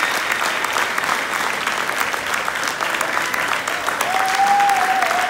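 Audience applauding with steady dense clapping, joined about four seconds in by one person's long, held high cheer.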